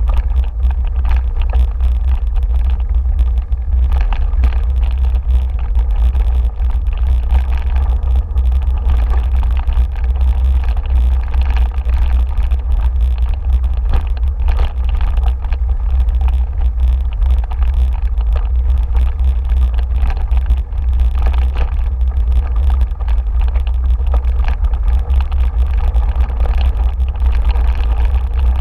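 Steady, loud wind rumble on the microphone of a bike moving fast along a dirt trail, with continual rattling and knocking from the bike over bumps in the ground.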